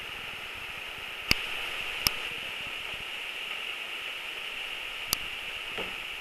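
Steady hiss with three sharp clicks, one a little over a second in, one about two seconds in and one about five seconds in.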